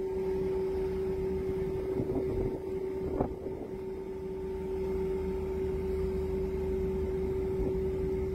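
Boat engine running steadily, a constant hum over a low rumble, with wind on the microphone; a brief knock about three seconds in.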